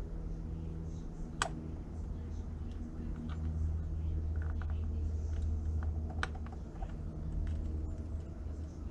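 Small plastic clicks and taps as instrument-cluster parts are handled and fitted together, with two sharper clicks, one about a second and a half in and one about six seconds in, over a steady low hum.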